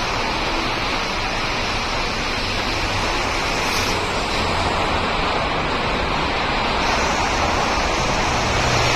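Steady outdoor background noise: an even roar of city traffic with a low rumble underneath, and no separate events standing out.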